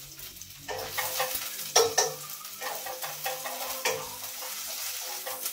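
Food sizzling in a frying pan, setting in about a second in, with several sharp clinks of a utensil against the pan.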